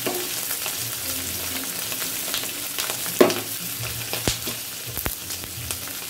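Pieces of rohu fish frying in hot mustard oil in a kadai: a steady sizzle with scattered crackles and spits. The loudest pop comes about three seconds in.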